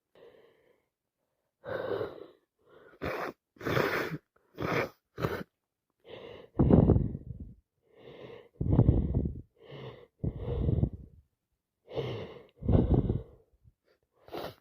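A person with a cold sneezing over and over: a fast run of short, sharp sneezes, then four louder sneezes, each coming just after a short in-breath.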